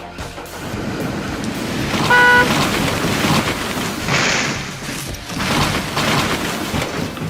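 A horn gives one short toot about two seconds in, the loudest sound here, over a steady noisy outdoor background.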